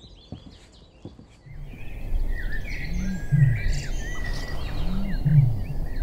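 Male Eurasian bittern booming in the reedbed: a deep, low-pitched boom like a foghorn, twice, about two seconds apart. It is the male's call to see off rival males and attract a mate. Small birds sing higher above it.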